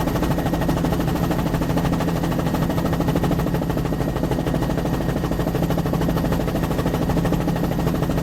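Bell 206 LongRanger helicopter in flight, heard from inside the cockpit: a steady low hum under a fast, even chop from the rotor blades.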